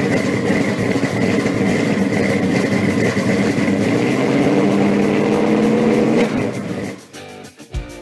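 A car engine running steadily and loudly, fading out about six seconds in. Guitar music begins near the end.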